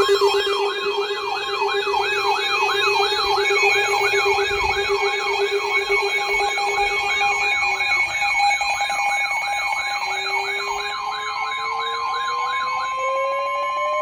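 Several sirens sounding together: a fast yelp wavering up and down about three times a second over steady tones, joined in the last few seconds by a siren winding up, rising in pitch.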